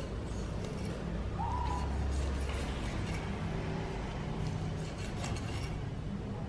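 A steel cleaver scoring the scaled skin of a whole carp on a plastic cutting board: faint scattered crunching clicks as the blade cuts, over a steady low hum. A short chirp sounds about a second and a half in.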